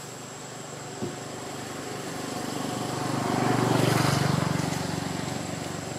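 A motor vehicle passing by: its low engine hum swells to a peak about four seconds in, then fades away.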